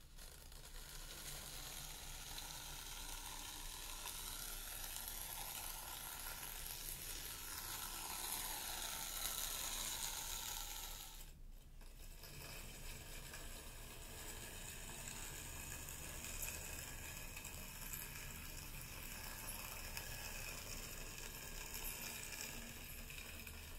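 Fine sand hissing and scraping as a wooden stick is drawn through it, in two long strokes with a short break about eleven seconds in.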